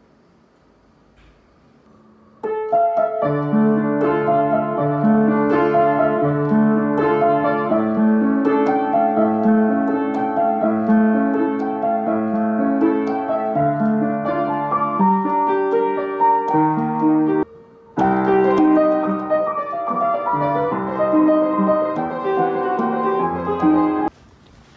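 Upright piano being played: a melody over steady lower accompanying notes. The playing starts suddenly about two and a half seconds in, breaks off briefly around 17 seconds, and stops just before the end.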